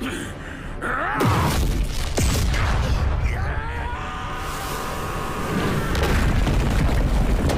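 Anime battle sound effects: a deep booming rumble under sweeping whooshes, held music tones in the middle, and a crash as rubble bursts from a building about six seconds in.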